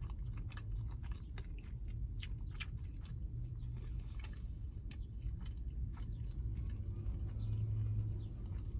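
A person chewing a bite of a breaded chicken sandwich, with many small wet mouth clicks and smacks, over a steady low hum.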